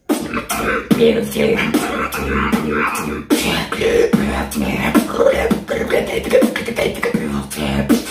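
Beatboxing: percussive mouth sounds (kicks, snares and hi-hat clicks) in a steady beat, with pitched vocal sounds woven between the hits.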